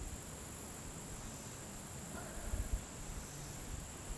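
Steady high-pitched drone of insects, with a few low bumps about two and a half seconds in.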